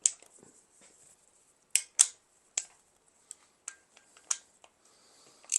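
Sharp metallic clicks and taps of hand tools on the Mazda 13B rotary engine's parts during teardown, about eight irregular clicks, the loudest two close together a couple of seconds in.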